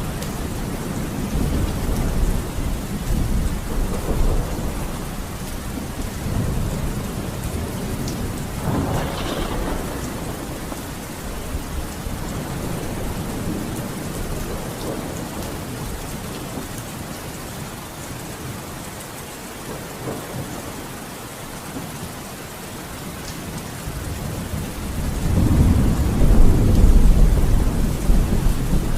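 Thunderstorm: steady rain with low rolls of thunder, a heavier rumble building near the end.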